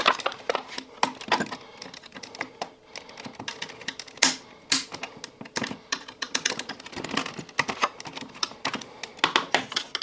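Irregular clicking and tapping of hard plastic as the catches holding a Samsung washing machine's circuit-board housing are pressed in and released and the housing is worked loose, with two sharper clicks a little after four seconds in.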